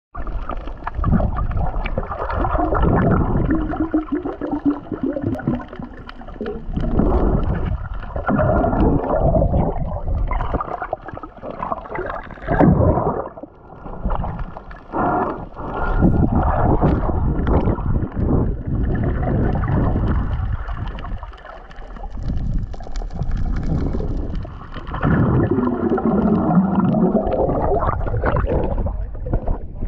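Muffled water noise heard underwater: uneven sloshing and gurgling, with low wavering tones now and then.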